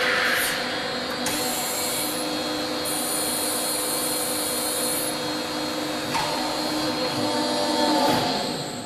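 Hydraulic drive of a Bystronic Xpert 150 CNC press brake running through a bend: the upper beam comes down onto a long metal sheet and presses it. It is a steady whirring hum with a steady whine, a higher hiss from about three to five seconds in, and a change in tone around six seconds in that swells before easing off near the end.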